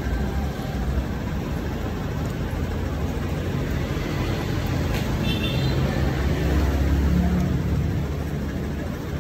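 Steady low rumble of background noise, like a running engine, with a brief high tone about five seconds in.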